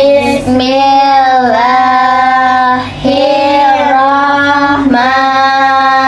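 Children's voices singing a prayer together in unison, in drawn-out phrases with short breaks about every second and a half.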